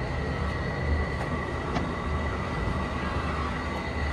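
Belt-driven wood lathe running steadily as it spins a wooden hotpot, a low motor hum with a thin steady whine above it.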